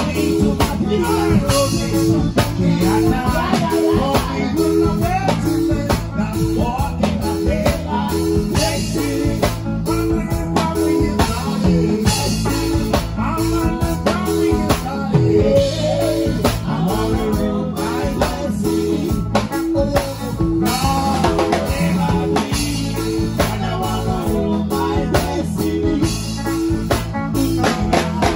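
A live band playing an instrumental groove at a sound check: guitar and bass over a drum kit, in a steady rhythm.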